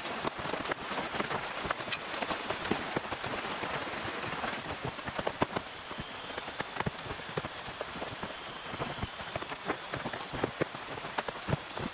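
Steady rain falling, with many separate drops striking sharply close by. A faint high steady tone comes in about halfway through.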